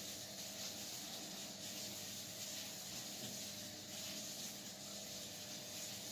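Steady background hiss with a faint low hum: room tone, with no distinct sound events.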